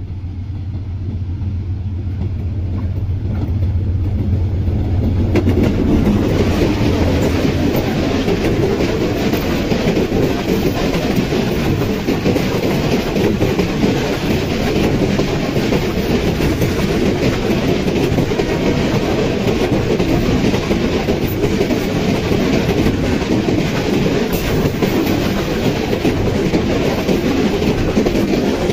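A Bangladesh Railway diesel locomotive hauling a passenger train passes close by. A steady low engine hum as it comes near gives way, about five seconds in, to the loud rattle and clatter of the coaches' wheels on the rails, which goes on as the train runs past.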